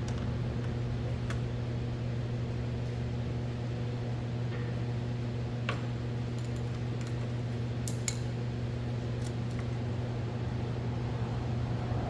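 Steady low electric motor hum with a few light clicks and metallic taps from parts and tools being handled.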